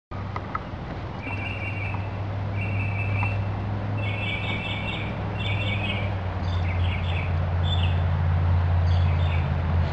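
Birds chirping in short repeated phrases over a steady low hum.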